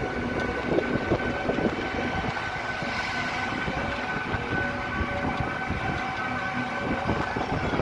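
Rattling and road noise from inside an open-sided vehicle moving along a street, with a steady high whine.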